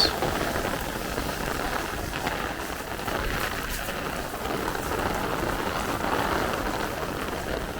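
Heavy downpour of rain falling steadily, an even hiss with no let-up.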